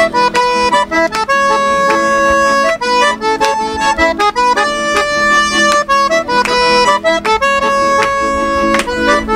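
Vallenato music: a button accordion plays the melody in held and repeated notes over band accompaniment with a steady beat. It is an instrumental passage with no singing.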